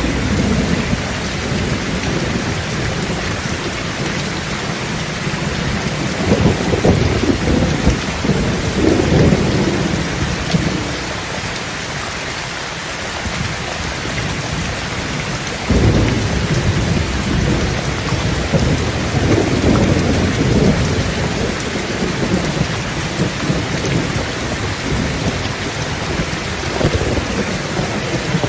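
Thunderstorm: steady rain with rolling thunder. Low rumbles swell and fade twice, the second starting suddenly about halfway through.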